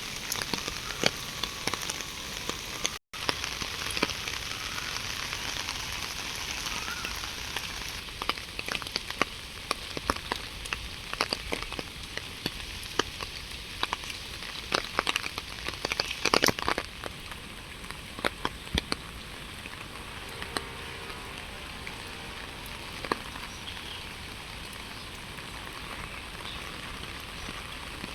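Steady rain with many separate drops ticking and pattering sharply on a hard surface, heaviest in the middle stretch.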